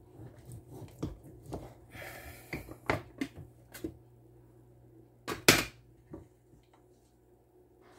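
Wooden knocks and clacks from a slotted bamboo soap-cutting box being handled while a loaf of melt-and-pour soap is cut into bars with a steel blade. There is a short rasp about two seconds in, and two loud knocks about five and a half seconds in.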